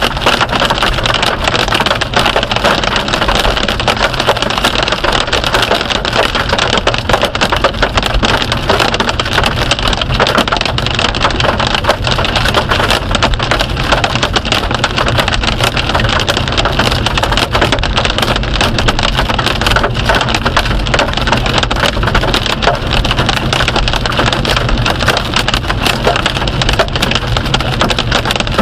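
Hail falling hard: a steady, dense patter of countless small impacts that does not let up.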